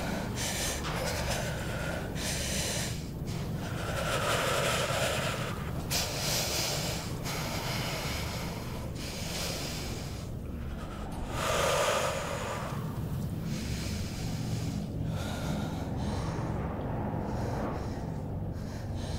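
A woman breathing hard in uneven, heavy breaths and gasps every second or two, the loudest about twelve seconds in, over a low steady rumble.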